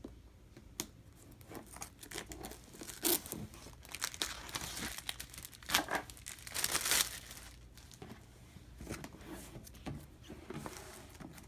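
Clear plastic shrink-wrap being slit with a knife, torn off a cardboard box and crumpled in the hands, in irregular crackling bursts that are loudest in the middle and fade near the end.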